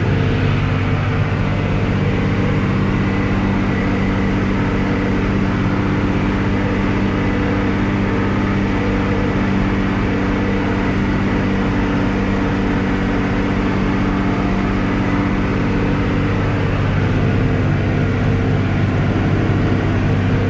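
Farm tractor engine running steadily at a constant speed, a loud even drone with no change in pitch.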